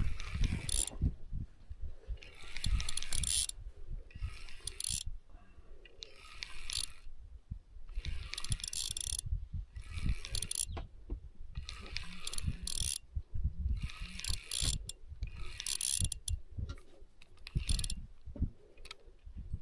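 Spinning fishing reel cranked in short spells about every two seconds, a whirring, clicking mechanical sound, as a heavy hooked fish is reeled in. A low rumble sits underneath.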